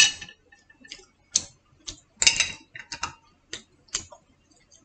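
Wooden chopsticks and a small glass jar clicking and tapping against each other: about a dozen short, sharp, irregular clicks.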